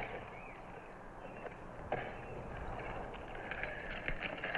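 Quiet background ambience of a film soundtrack: a steady hiss and hum, a single sharp click about two seconds in, and a short run of light clicks or rustles near the end.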